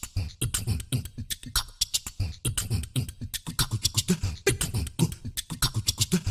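Intro music made of a fast percussive beat: deep thumps and sharp hissing hits several times a second, in a beatbox-like pattern.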